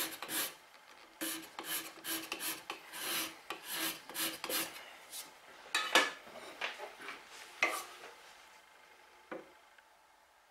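A flat abrasive plate rasped back and forth across the wooden sole of a coffin smoother, about two strokes a second, to flatten the sole. The strokes stop after about five seconds, followed by a couple of sharp knocks and a soft thump near the end.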